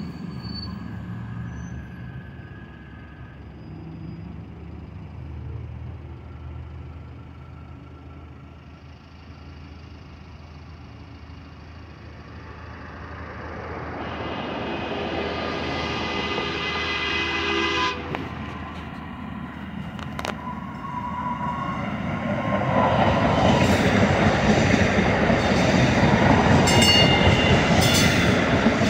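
DART light-rail train approaching, sounding its horn for about four seconds before the horn cuts off. The train then comes through, its rolling noise growing loud and staying loud to the end.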